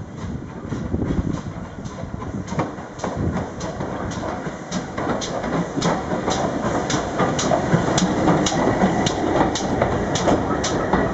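GWR Modified Hall two-cylinder 4-6-0 steam locomotive running slowly in along the platform with a steady rhythmic beat, about two to three beats a second, growing louder as it draws close.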